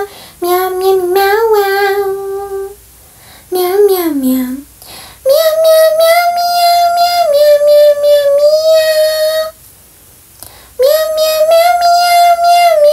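Background song: a single high, child-like singing voice carrying a slow melody of long held notes, with short breaks about three, five and ten seconds in.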